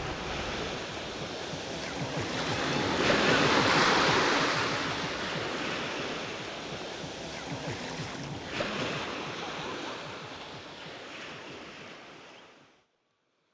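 Ocean surf washing, an even rush that swells a few seconds in and then slowly fades out to silence near the end.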